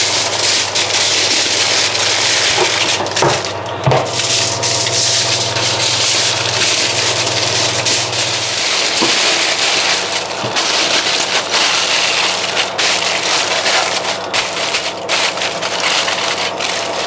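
Aluminium foil crinkling and rustling in continuous crackles as it is folded and pressed around a marinated leg of lamb. A low steady hum underneath stops about halfway through.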